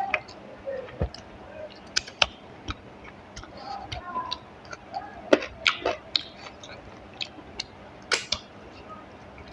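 A person eating rice and curry up close: irregular wet mouth clicks and smacks from chewing, some louder than others.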